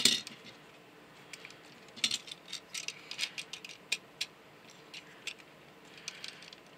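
Hard plastic Transformers figure parts clicking and rattling as they are handled and tabbed together: one loud click at the start, then scattered light clicks and ticks.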